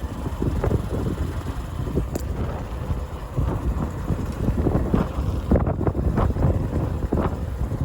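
Wind buffeting the microphone of a moving motorcycle: a dense low rumble with irregular gusty thumps, the bike running underneath.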